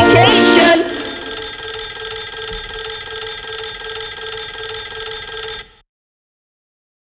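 Electronic hip-hop track ending: about a second in, the beat drops away and leaves a sustained synthesizer chord with a fast pulsing note. The chord cuts off suddenly into silence with over a second to go.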